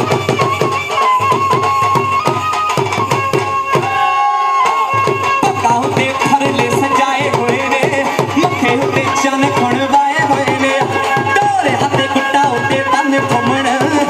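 Bhangra music: a fast, driving drum beat under a melody, with the drums breaking off briefly about four seconds in.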